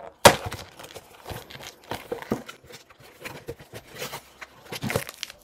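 A cardboard box of Frosties cereal bars being torn open and handled: a sharp rip about a quarter second in, then irregular crinkles and taps of cardboard and wrapped bars, with another louder rustle near the end.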